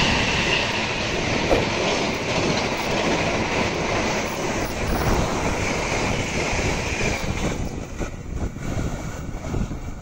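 Passenger train coaches passing close by: a steady rumble and clatter of wheels on the rails, growing quieter after about three-quarters of the way through as the train moves away.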